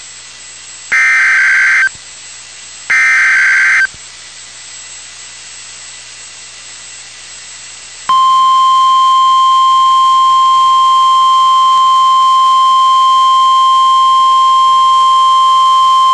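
NOAA Weather Radio EAS alert: two short buzzy SAME digital header bursts about two seconds apart, then a few seconds of radio hiss, then about eight seconds in the steady 1050 Hz warning alarm tone starts and holds, signalling a tornado warning.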